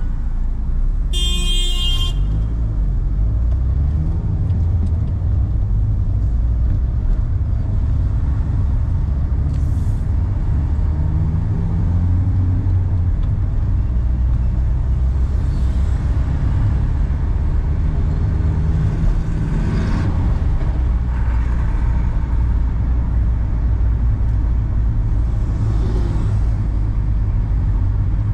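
Steady low rumble of a 2011 Renault car driving through city traffic, with a car horn honking once for about a second, about a second in.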